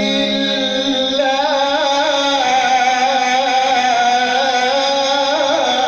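A male Quran reciter's voice in melodic Egyptian-style recitation, holding one long, ornamented vowel. The pitch wavers up and down in turns and trills throughout.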